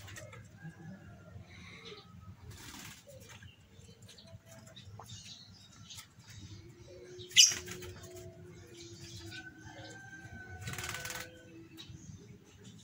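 Aviary birds, among them a lovebird, flapping their wings and chirping in a wire-mesh cage. A sharp squawk about seven seconds in is the loudest sound, and a low drawn-out cooing note runs through the second half.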